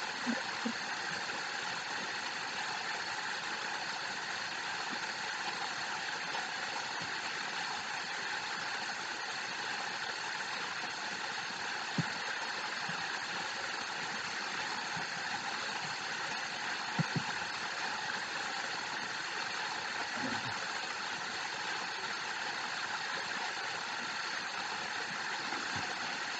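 A steady, even hum and hiss with a few faint clicks.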